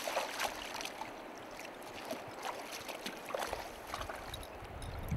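Water splashing in a shallow, stony river as a hooked trout is played in close to the angler's feet, with scattered sharp splashes over the river's steady rush. A low rumble builds near the end.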